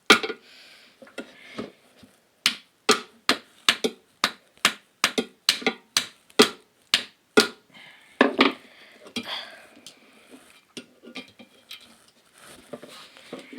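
A small hammer tapping on metal, striking a tool held against the speaker part to knock it loose. The taps come about twice a second for several seconds, with a louder knock after them and then a few lighter scattered taps.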